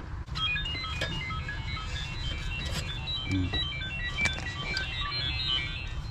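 A quick chiming tune of short, high-pitched notes, with a few light knocks and a steady low rumble underneath.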